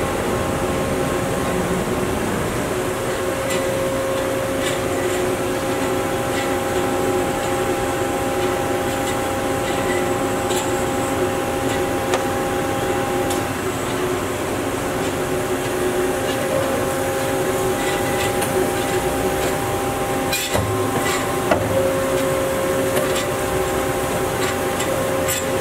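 Hyd-Mech S-20A horizontal band saw running: a steady mechanical hum with several held tones from the blade and drive. A couple of low thumps come about twenty seconds in, after which the tone shifts.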